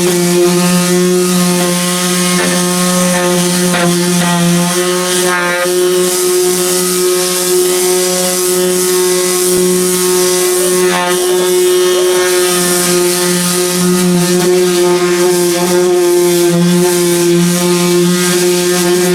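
Power sander running steadily against a car's painted door panel: a constant motor hum with a row of overtones under a rasping hiss as it sands off old sun-baked paint.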